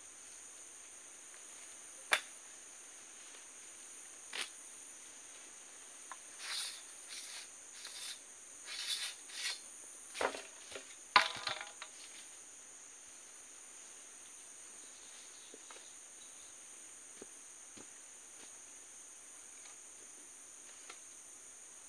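Steady high chirring of insects, with scattered knocks and clatters of a metal oil palm harvesting pole being handled and taken apart, most of them bunched between about six and twelve seconds in, the sharpest a little after two seconds and about eleven seconds in.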